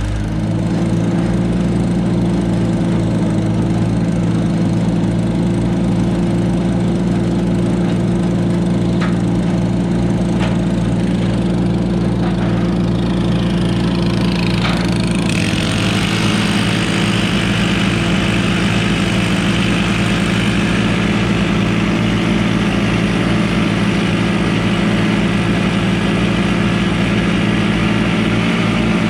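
Loader engine running steadily at a constant speed. About halfway through, a brighter hiss joins in and the engine note shifts slightly.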